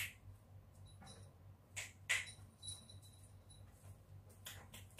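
A small jingle bell shaken in short bursts, a few quick jingles in the first half followed by a light ringing, over a low steady hum.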